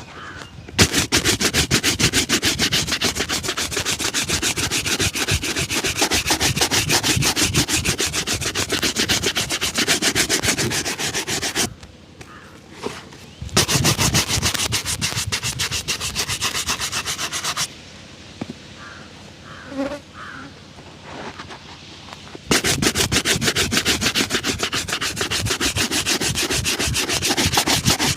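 Rapid back-and-forth rubbing strokes on a shoe's leather during a shoe shine, in three long spells with two short pauses, the first about twelve seconds in and the second around eighteen seconds in.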